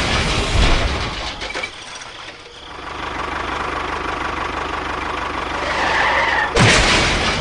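A small engine running at idle with a steady, even low chug, joined by a couple of sharp noisy bursts near the start and near the end.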